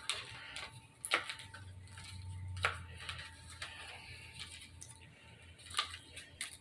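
Small parts of a flashlight being handled: scattered sharp clicks and light knocks with soft rustling between them, the loudest clicks about a second in and again near the end.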